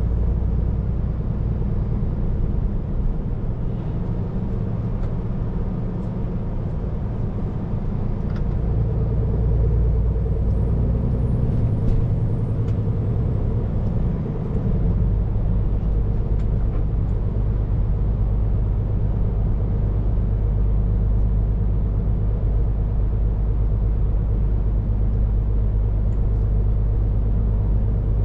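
Scania P410 truck's diesel engine and road noise heard from inside the cab while driving, a steady low drone. The engine note shifts around the middle and settles into a steadier, stronger drone from about fourteen seconds in.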